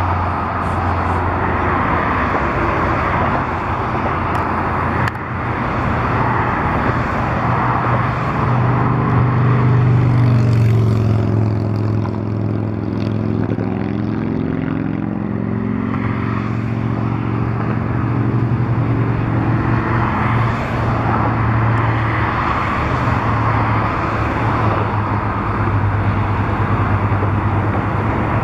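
Steady low engine drone throughout. About halfway through, another engine passes by, its pitch bending as it goes.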